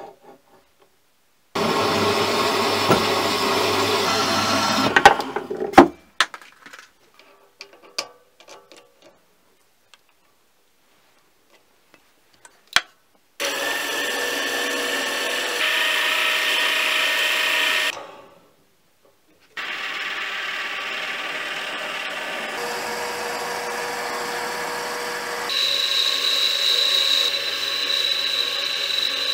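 A metal-cutting bandsaw cuts through a metal bar for a few seconds, followed by scattered clicks and knocks. Then a mini lathe runs as it faces and bores a metal workpiece, in two stretches with a short pause between, and a steady high whine from the cut comes in near the end.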